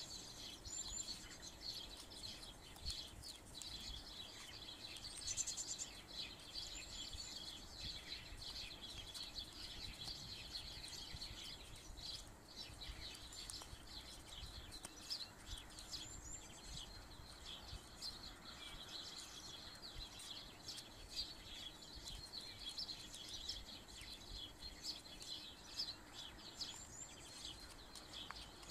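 Faint, continuous chirping of small birds: many short, high calls overlapping throughout, with an occasional higher call standing out.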